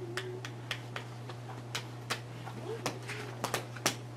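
Scattered light clicks and taps of a room full of seated children shifting about, with a few faint small voices and a steady low hum.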